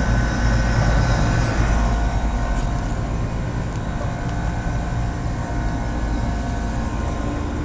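Central air-conditioning condensing unit running in cooling mode, heard close to the cabinet by the compressor: a steady compressor hum with the condenser fan's rushing air.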